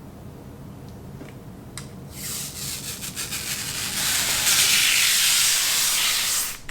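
A loud, even hiss that starts about two seconds in, grows stronger about halfway through, and cuts off suddenly near the end.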